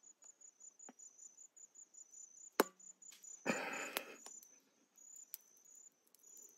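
A tyre plug insertion tool being forced into a puncture in a tyre's tread: a sharp click about two and a half seconds in, then a short scrape about a second later. Insects chirp steadily at a high pitch behind it.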